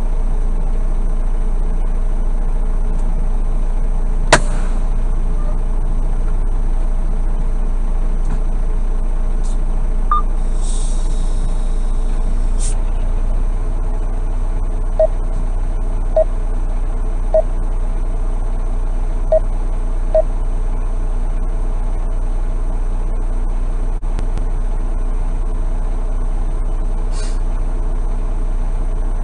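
Semi truck's diesel engine idling steadily, picked up in the cab. A sharp click about four seconds in, a short hiss around the middle, and five short beeps a little after.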